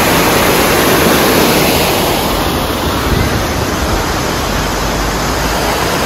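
Waterfall pouring down with heavy force: a loud, steady rush of falling water.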